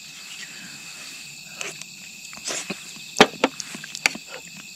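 An eating utensil clinking and tapping against metal camp cookware: a few sharp clinks, the loudest about three seconds in. Insects chirp steadily behind.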